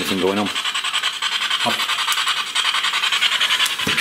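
A steady, fast-pulsing rasping hiss, with a short voice-like sound in the first half second.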